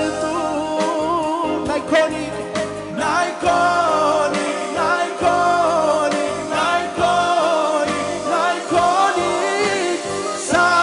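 A male lead singer sings a Romani-language Pentecostal worship song with vibrato, a group of men singing along behind him, over electronic keyboard accompaniment with a steady beat.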